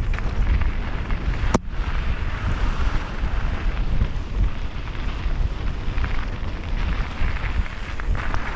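Wind buffeting a camera microphone on a mountain bike descending dirt singletrack, over the rumble and rattle of the bike on the trail. One sharp click about one and a half seconds in.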